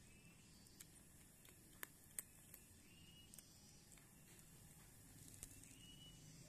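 A cat chewing dry food pellets: faint, sparse crunches, about half a dozen sharp clicks over a quiet background, the loudest about two seconds in. A few faint high chirps sound now and then.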